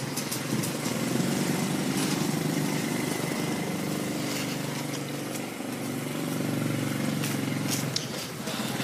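Motorbike engine running steadily while riding, with a slight dip in level about halfway through.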